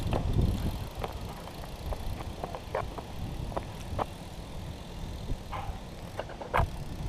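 BMX bike rolling on asphalt, with a few short clicks and squeaks from the bike as the rider hops and pedals, over a low rumble of wind on the microphone.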